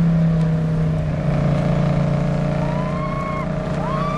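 A car engine running steadily at speed. From about two and a half seconds in, a few short high cries or squeals rise and fall over it.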